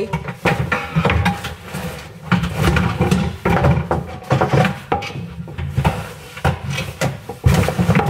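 Irregular knocks, thumps and rustling of household items being handled and moved around in a closet.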